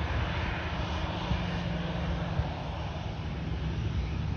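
Jet engines of a Ryanair Boeing 737 running at low power as the airliner rolls along the ground after landing. Its steady rush of engine noise sits over an uneven low rumble.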